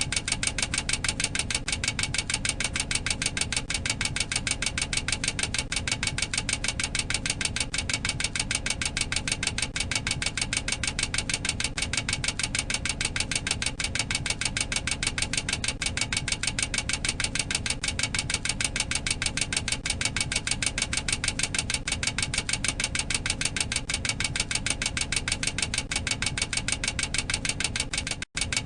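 Boeing 737-800 cockpit overspeed warning clacker: a rapid, even, unbroken clicking over a low steady hum, with a split-second break near the end. It is the aural alert that the airspeed limit has been exceeded.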